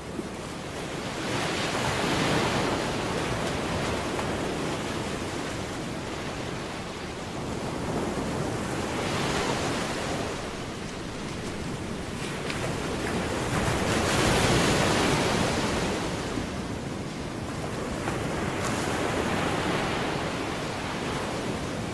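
Surf washing in, a rushing noise that swells and falls about every five seconds, with some wind on the microphone.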